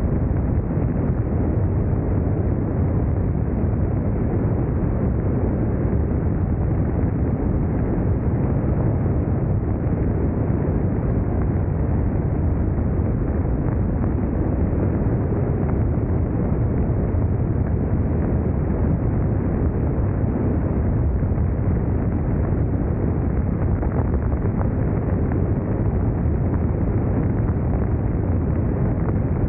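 BMW K1600 GTL motorcycle's inline-six engine running steadily under way, with wind rushing over the microphone.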